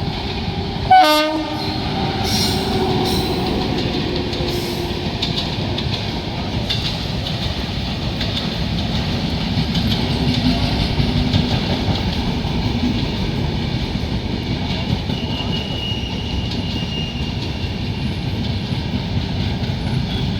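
Indian Railways express passenger train running into a station: a short, loud horn blast about a second in, then the steady rumble of the coaches with wheels clacking over rail joints.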